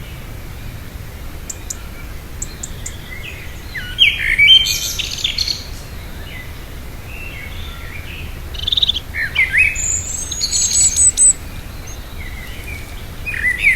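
Small songbirds chirping and calling in short, scattered high-pitched phrases, with a burst of calls about four seconds in, a busier run around the middle of the second half, and more calls near the end.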